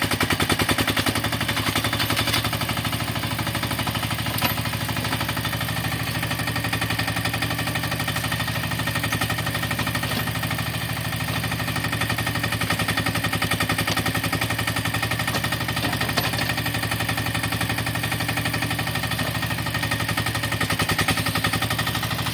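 Carter CT10 mini excavator's small engine running steadily with a fast, even chugging beat. A couple of sharp knocks, one about four seconds in and another near sixteen seconds.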